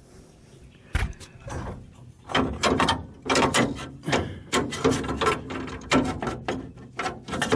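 Metal trunk-lid hinge and spring parts clicking and knocking as they are forced by hand against their bracket, several irregular knocks a second starting about a second in; the spring piece is tight and will not go up all the way into place.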